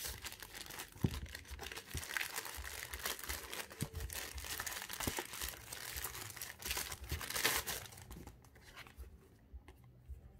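Grey plastic courier mailer bag being slit with a knife and torn open, with dense crinkling and rustling of the thin plastic and many small clicks. The rustling dies down after about eight seconds.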